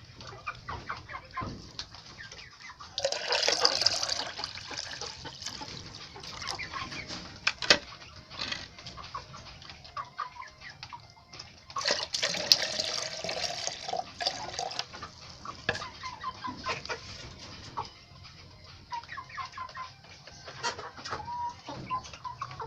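A flock of local chickens clucking, with many short calls overlapping. Twice, about three seconds in and again near the middle, a louder rushing burst lasting a second or two rises over the clucking.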